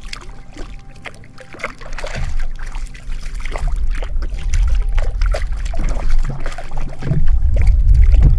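Water splashing and sloshing right beside a sit-on-top fishing kayak as a small jack cravalle is hauled in on the line, in many short irregular splashes. A heavy low rumble underneath grows louder toward the end.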